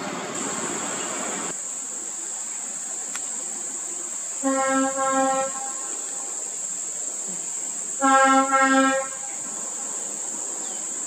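Two blasts of a truck's air horn, each about a second long with a stuttering lower note, about four and a half and eight seconds in, over a steady high-pitched insect drone. Road traffic noise cuts off about a second and a half in.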